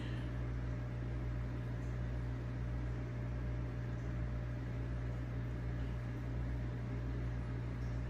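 Steady low electrical hum with an even hiss, from running aquarium equipment.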